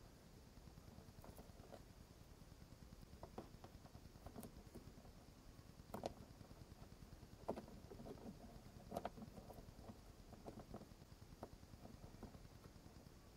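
Faint, scattered clicks and taps of fingers handling a car's plastic dome-light housing, tucking the wiring in and pressing an LED board into place, with a few louder clicks in the middle.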